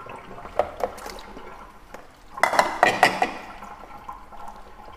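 Freshly washed pork belly handled in a plastic colander: water dripping and splashing off the wet meat, with a few light plastic knocks and a louder spell of wet clatter about halfway through.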